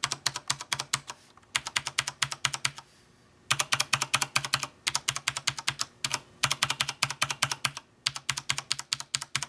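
Corsair Strafe RGB mechanical keyboard fitted with Vortex doubleshot PBT keycaps, typed on in quick runs of about eight keystrokes a second with short pauses between runs. The thicker PBT keycaps give the keystrokes a deeper, less high-pitched tone than thin stock keycaps.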